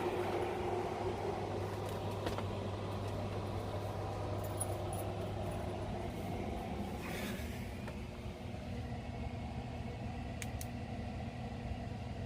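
A 5,000 BTU air conditioner running on a 2,000-watt inverter and battery bank: a steady hum of compressor and fan, with a brief rustle about seven seconds in.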